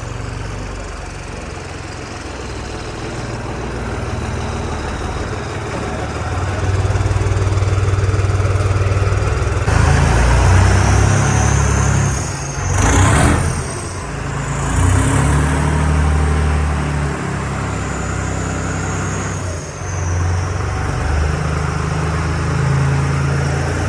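Diesel tractor engine running and working under varying throttle, louder and harder from about ten seconds in. A thin high whistle rises and falls through the middle part.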